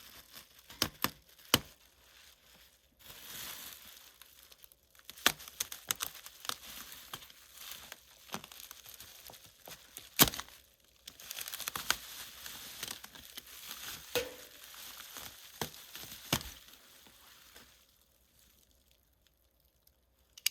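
Packaging being pulled off and crumpled by hand: crinkling and tearing rustles broken by sharp clicks and knocks, which stop near the end.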